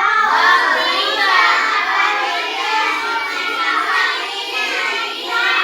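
A class of children reciting a sentence aloud together in unison, a loud chant of many young voices that starts suddenly and keeps going without a break.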